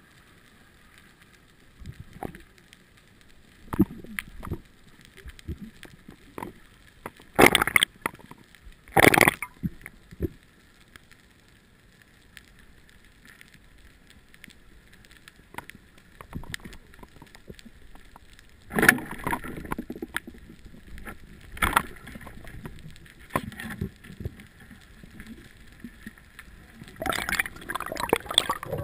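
Underwater sound picked up through a GoPro's waterproof housing during a freedive: faint water noise with several short, loud bursts of gurgling and bubbling, the two loudest close together about eight and nine seconds in, and a busier stretch of water noise near the end.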